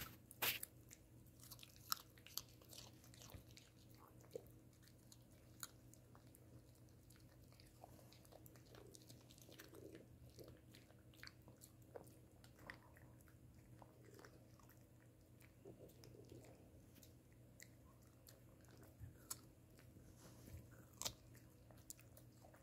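Shih Tzu biting and chewing a chunk of raw carrot: irregular crisp crunches with quieter chewing between. The crunches are loudest in the first couple of seconds and again near the end.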